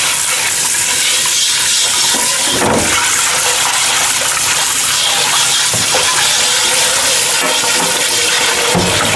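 Kitchen tap running steadily into an enamelled cast-iron Le Creuset pot, the water splashing inside it as the pot is rinsed out by hand.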